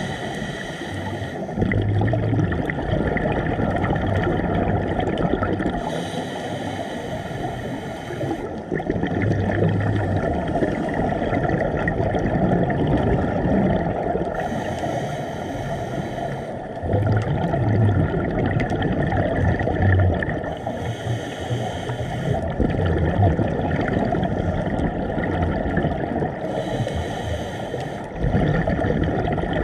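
Scuba regulator breathing heard underwater through a camera housing. About every six seconds an exhalation sends out a two-second burble of bubbles, over a steady muffled water rumble.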